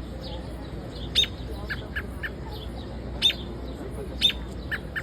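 Birds calling: loud, sharp chips a second or two apart, with softer short notes in quick groups of three between them, over a steady low background rumble.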